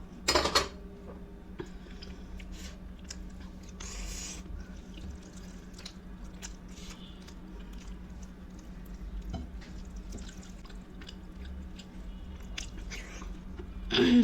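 A person chewing food close to the microphone, with small wet mouth sounds and clicks. Two loud short sounds come, one just after the start and one near the end. A faint steady hum runs underneath.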